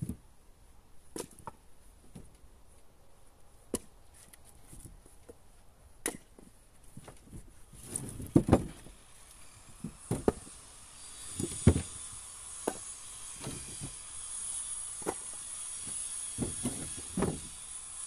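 Split birch firewood logs being lifted from a trailer and tossed onto a woodpile: irregular wooden knocks and clatters, the loudest clusters around the middle and near the end. A steady high hiss comes in about two-thirds of the way through.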